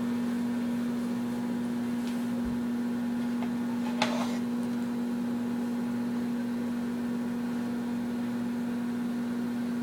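Microwave oven running with a steady hum while it heats, with a single short click about four seconds in.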